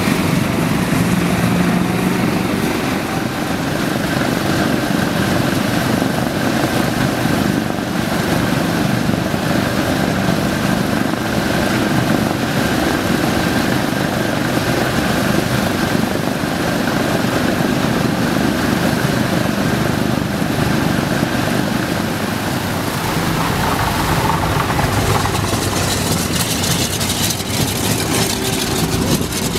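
Twin piston engines of a propeller aircraft running on the ground. They grow heavier and rumblier about three-quarters of the way through, as the plane taxis close past.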